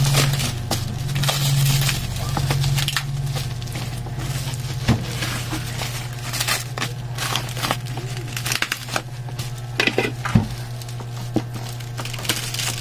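Clear plastic stretch wrap crinkling and crackling as hands handle a wrapped package, in many short irregular crackles over a steady low hum.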